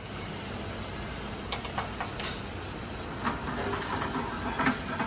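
Boiled rice sizzling in a hot pan for risotto, a steady hiss. A few light clicks of a utensil against the pan come through it.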